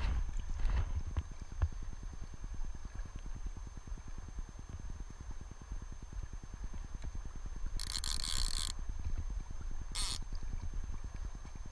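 River current and wind rumbling low against a body-worn camera's microphone while a hooked steelhead is played on a fly rod. About 8 s in, the fly reel's clicking drag runs for about a second, then again briefly about 2 s later.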